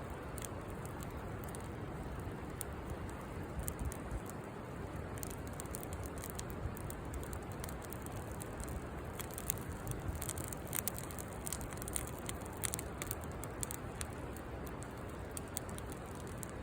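Wood campfire crackling, with frequent sharp pops and snaps over a steady hiss; the pops come thickest a little past the middle.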